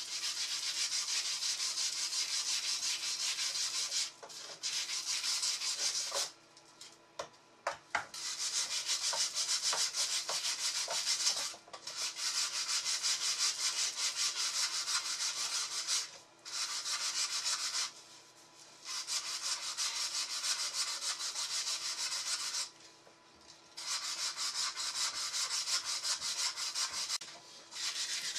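Hand sanding of the curved frame piece of an old wooden chair with an 80-grit perforated mesh abrasive disc: fast back-and-forth rasping strokes in runs of several seconds, broken by short pauses.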